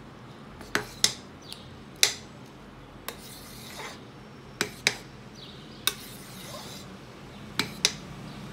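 A spatula stirring thick hot-process soap batter in a slow cooker's ceramic crock. It scrapes and knocks against the side of the pot in irregular sharp clicks, about nine in all, some coming in quick pairs.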